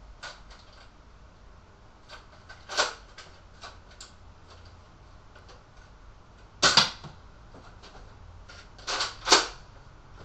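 Nerf Recon CS-6 spring blaster being primed and fired: a series of sharp plastic clacks and snaps. The loudest comes about two-thirds of the way through, with a quick pair near the end.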